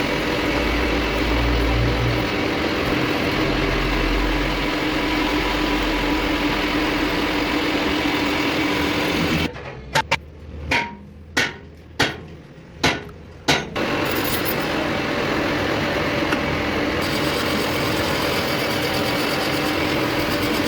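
A machine running with a steady hum. Partway through it gives way to about six sharp hammer strikes on a trunnion shaft part, roughly 0.6 s apart, each ringing briefly, before the machine noise returns.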